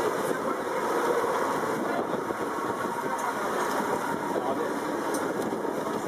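A boat engine running steadily at idle, with faint voices of people moving along the deck.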